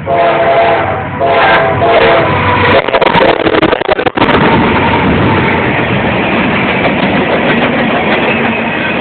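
A K5LA five-chime air horn on a CSX freight train's lead locomotive sounds two blasts, a short one and then a longer one. Then the train goes by close, with loud rushing noise and some crackles, settling into the steady rumble of the cars rolling past.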